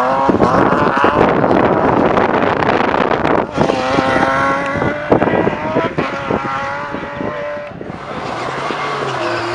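Rally car engine revving hard as the car slides through a corner and accelerates away, the pitch climbing through the gears. The engine holds a high steady note, then dips briefly near the end and carries on quieter as the car pulls away.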